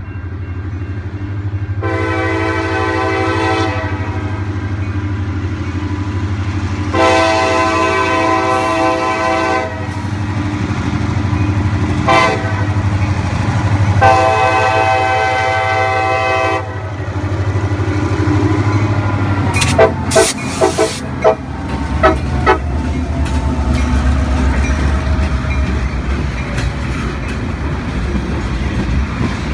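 CSX GP38-2 diesel locomotive's air horn sounding the grade-crossing signal (long, long, short, long) over the steady low rumble of its EMD two-stroke engine. About twenty seconds in, sharp wheel clacks ring out as the locomotive passes, followed by the rumble of covered hopper cars rolling by.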